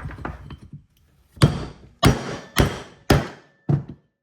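Hammer blows on a steel punch, metal on metal, driving a bearing out of a Polaris ATV front differential housing: a few lighter taps, then five hard ringing strikes about half a second apart.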